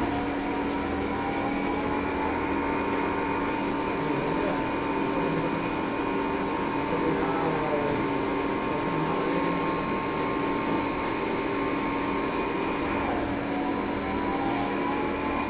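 CNC lathe running a machining cycle: a steady mechanical whine made of several held tones, with some tones gliding down and then up in pitch.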